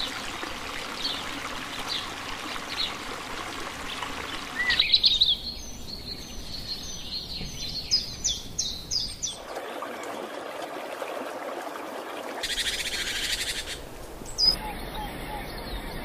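Rushing river water with birds chirping over it. About five seconds in, the water sound drops away and a bird calls a run of quick, high notes. Then come a few stretches of steady hiss.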